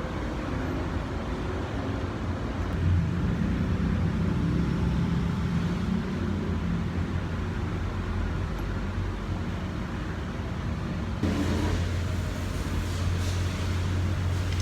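Kawasaki ZX-10R's inline-four engine running steadily, with a brief louder moment about three seconds in.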